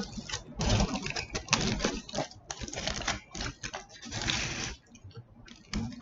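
Close-miked eating of a Chipotle chicken burrito: irregular wet chewing clicks and smacks.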